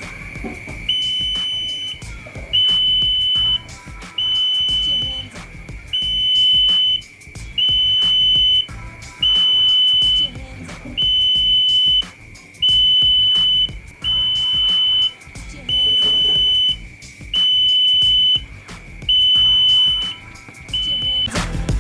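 Smoke detector alarm sounding through the connected wireless alarm: long, high-pitched beeps repeating about every second and a half to two seconds, over a continuous steady high tone.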